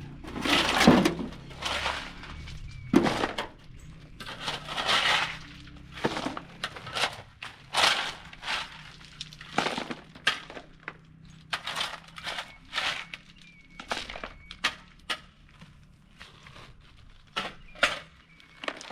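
Irregular crunching and snapping knocks, about one or two a second, loudest in the first few seconds.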